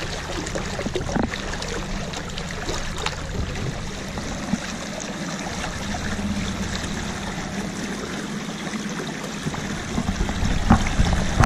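Water rushing and splashing along the hull of a canoe moving through the water.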